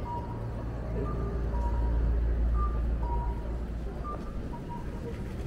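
A vehicle passes on the street with a low engine rumble that swells and fades, while a two-note electronic warning beep repeats, one pair about every second and a half.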